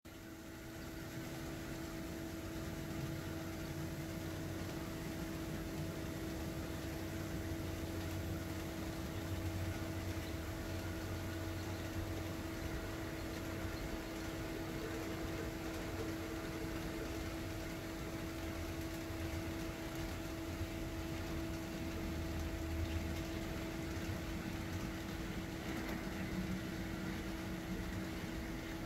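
Model Southern Pacific diesel switcher's sound decoder playing a steady diesel idle, with a constant tone over a low rumble.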